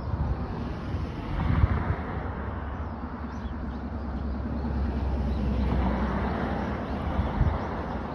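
Sea waves washing in on the shore, the noise swelling and easing twice, with wind gusting on the microphone.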